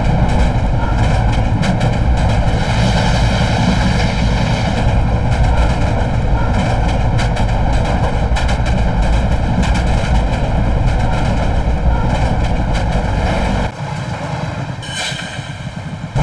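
Diesel locomotive running at speed: a loud, steady rumble with rushing wind. About two and a half seconds before the end the deep rumble suddenly drops away, leaving a lighter, quieter rush with a brief hiss.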